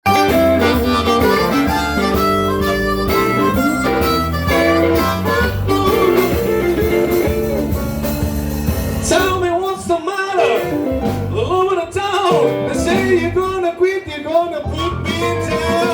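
Blues band playing an instrumental opening, with blues harmonica over guitar, bass and drums. About nine seconds in, the bass and drums drop back, leaving mostly a lead line of bending notes, until the full band comes back in near the end.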